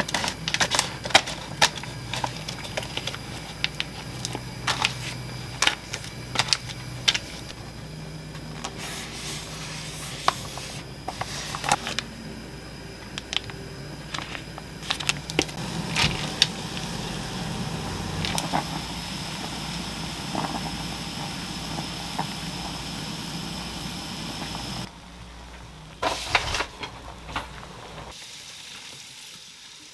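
Kitchen scissors snipping open a plastic food bag and the plastic noodle packaging crinkling and rustling in the hands, many sharp clicks and crackles, followed near the end by noodles cooking in a pot of boiling water.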